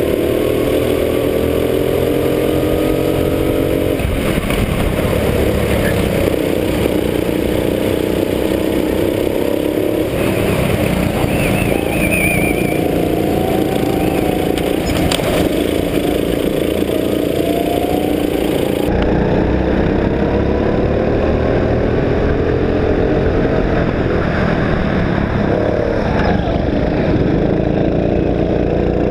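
Rental go-kart engines running hard, recorded on board: the kart's engine note repeatedly rising under acceleration and dropping off into the corners, over a steady rumble of the other karts around it. The sound changes abruptly a few times where it switches from one kart's onboard recording to another.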